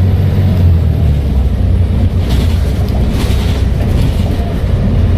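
Volvo B7TL bus's six-cylinder diesel engine running with a steady low drone, with two short hissing sounds about two and three seconds in.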